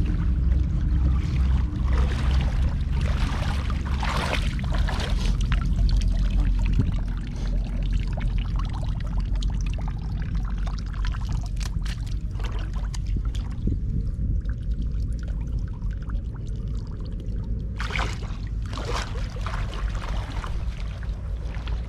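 Water pouring and splashing in bursts, over a steady low rumble.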